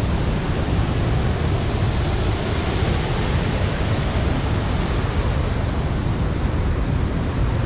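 Waterfall and rushing muddy river water, a steady, loud, even rush with a heavy low rumble.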